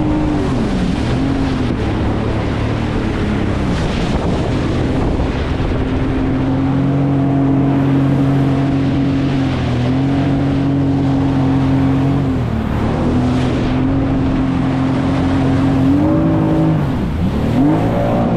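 Jet ski engine running under way, its pitch falling at the start, holding steady through the middle with a couple of brief dips, then rising, falling and rising again near the end as the throttle changes. A steady rush of water and wind runs under it.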